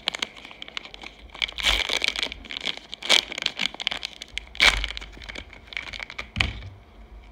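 Plastic wrapper of a baseball-card fat pack being torn open and crinkled by hand: an irregular run of crackling rustles with sharper, louder crackles about two, three, four and a half and six and a half seconds in.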